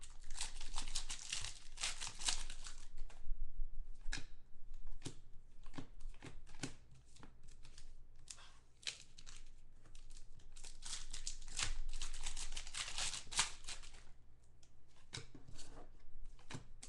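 Foil wrappers of 2013 Panini Contenders football card packs being torn open and crinkled, in two long spells: one at the start and another from about ten seconds in. Between them come lighter short clicks and rustles of cards being handled.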